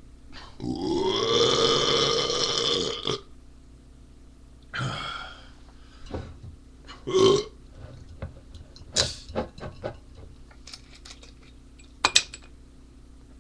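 A man belching: one long, loud burp lasting about two and a half seconds, followed by several shorter, separate sounds.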